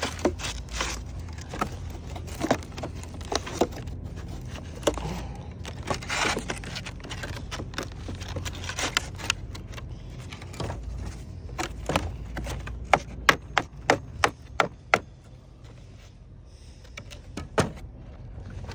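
Hand tools knocking, tapping and scraping on wood roof shakes, with a quick run of about eight sharp strikes about two-thirds of the way through and one more near the end.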